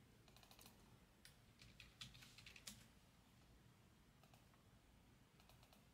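Faint typing on a computer keyboard, in a few short runs of clicks in the first three seconds and again near the end, otherwise near silence.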